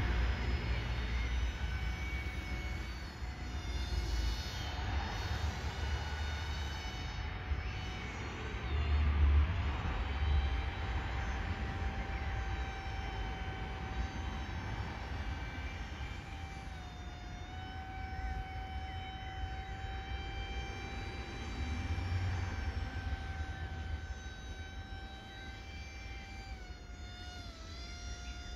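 Steady whine of a radio-controlled paramotor's motor and propeller, one tone with overtones that dips briefly in pitch twice, over low, gusty wind rumble on the microphone.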